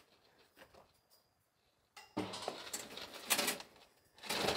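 Knocks, clinks and scraping as a long timber beam is handled and pushed up into place overhead: a few faint taps at first, then from about halfway an uneven stretch of knocking and scraping that is loudest near the end.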